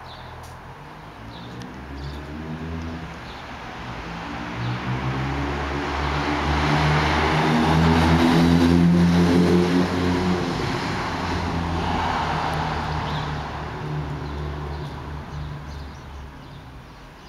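A car driving past, its engine and road noise swelling to a peak about halfway through and then fading away.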